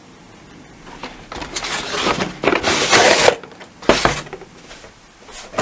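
Cardboard toothbrush box being opened by hand: a scraping rustle of cardboard sliding apart that builds for about two seconds, then a sharp knock.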